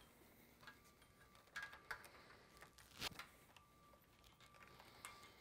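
Near silence with a few faint clicks and light knocks, the loudest about three seconds in: a wiring harness being handled and strung out by hand along a sprayer boom.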